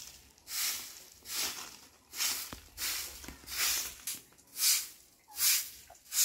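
Stick broom (walis tingting) sweeping a bare dirt yard: about eight brisk swishing strokes, a little more than one a second.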